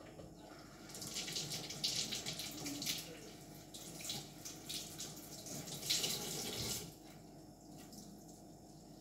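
Kitchen tap running into a sink, the water splashing unevenly as things are rinsed under it; it starts about a second in and is turned off about seven seconds in.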